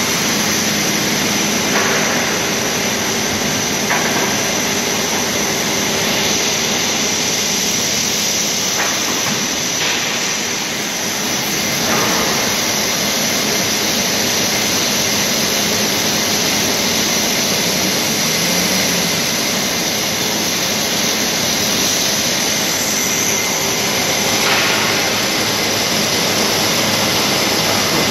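Belt conveyors of a MiTek CDS jig line running: a loud, steady mechanical drone, with a handful of sharp knocks scattered through it.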